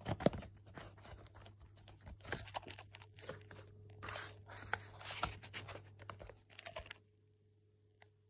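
Paper pages of a thick textbook rustling and being handled, with small clicks and knocks as the book is held open with a clip, including one sharper knock just after the start. The sounds stop abruptly about seven seconds in.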